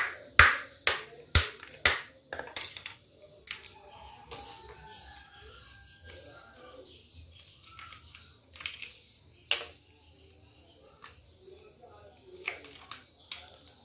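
Sharp cracks and knocks from a knife striking a mud crab's shell, about two a second for the first few seconds, then scattered single snaps and clicks as the shell and gills are pulled apart by hand.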